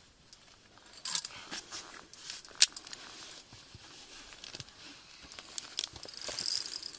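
Sharp metallic clicks and scrapes of via ferrata lanyard carabiners knocking and sliding along the steel safety cable, with rustling and scuffing as the climber moves along the rock. The loudest click comes about two and a half seconds in.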